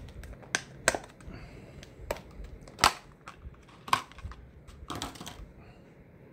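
Plastic packaging crinkling and crackling in a series of sharp, irregular snaps as a bore snake is pulled out of its bag.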